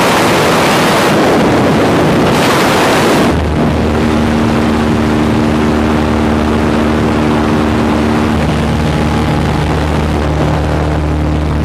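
Wind rushing through the open door of a small single-engine plane in flight. The rush is loudest for about the first three seconds; after that the steady drone of the piston engine and propeller carries on under the wind noise.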